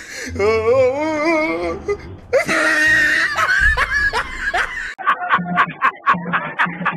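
Edited-in comic music with a warbling tune, then a man laughing loudly in quick, regular pulses, about three or four a second, from about five seconds in.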